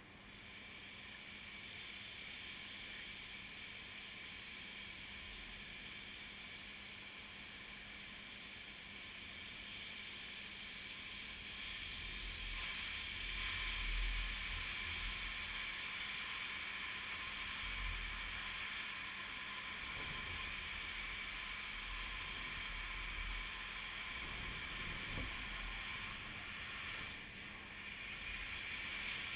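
Steady hiss with gusts of wind rumbling on the microphone, swelling over the first half. Near the end a fuel flash fire ignites and flames rush up across the test area.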